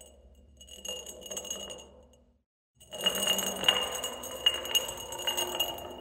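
Glass bottle rolling. A faint roll fades out in the first two seconds; after a brief silence a louder roll starts about three seconds in, with a steady ringing tone and many small clinks.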